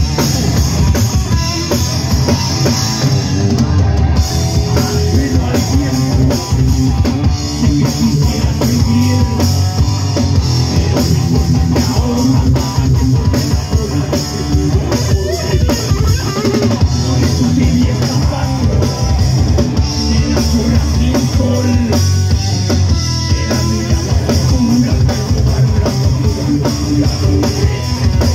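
Live rock band playing electric guitar, electric bass and a drum kit.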